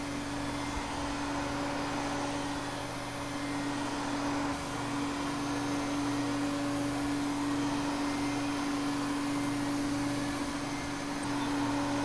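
Vacuum cleaner running steadily: an even, unbroken drone with a strong low hum tone under a wide rushing noise.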